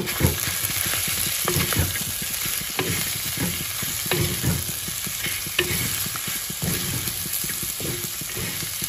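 Mutton, potatoes and ginger-garlic paste sizzling in hot oil in a heavy black kadai while a spatula stirs them, with uneven scraping and knocking of the spatula against the pan.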